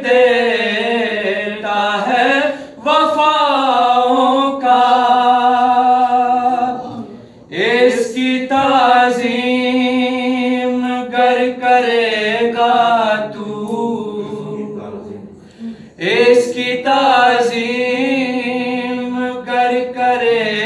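Unaccompanied male singing of an Urdu manqabat, a devotional poem for Imam Hussain, in long drawn-out notes whose pitch wavers and glides. There are three phrases, with short breaks about seven seconds in and again near sixteen seconds.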